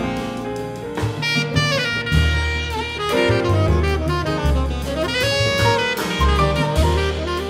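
Jazz ensemble playing live: saxophones carry the melody line over double bass, piano and drum kit.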